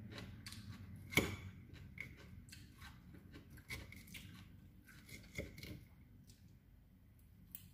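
Close-up eating sounds: chewing, with a metal fork clicking and scraping against a plate and a salad bowl in a string of short, sharp clicks, the loudest one about a second in.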